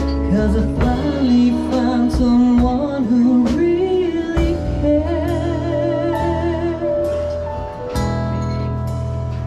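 Live acoustic performance: a woman singing a slow song over chordal instrumental accompaniment, holding notes with a clear vibrato about halfway through.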